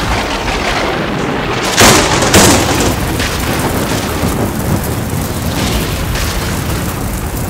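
Thunderstorm: steady heavy rain, with a loud crack of thunder about two seconds in and a second crack half a second later.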